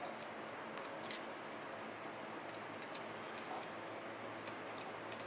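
Light, irregular clicks and ticks of a small screwdriver and tiny screws being fitted into a model locomotive's motor, over a faint steady hiss.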